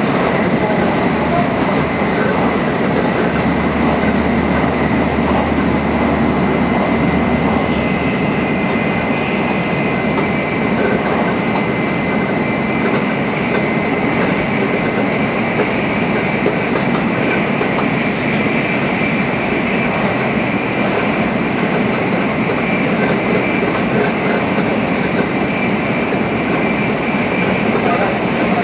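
Tokaido Shinkansen Nozomi bullet train running at high speed: a steady, dense rumble of wheels and rushing air with a thin, steady high whine. A low hum underneath fades out about a third of the way through.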